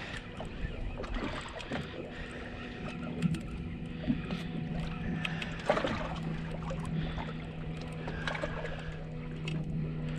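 Fishing boat on the water: wind and water hiss with scattered clicks and knocks of gear being handled. A steady low hum comes in about three seconds in and holds.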